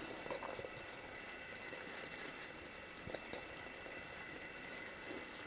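Thick cream-and-cheese sauce simmering quietly in a pan over the lowest flame, with a couple of faint soft taps as handfuls of cooked pasta drop in.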